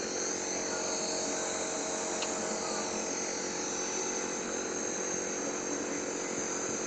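Nebulizer's small electric compressor running steadily, a constant motor hum with a high-pitched whine over it, delivering mist for a child's inhalation treatment.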